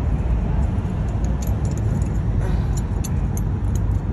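Light metallic clicks and clinks of brake pad retaining clips being worked out of a van's front brake caliper bracket, a few at a time, over a steady low rumble.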